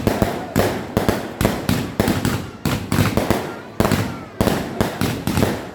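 Fireworks going off in a rapid barrage: sharp bangs and crackles following one another several times a second, each fading quickly before the next.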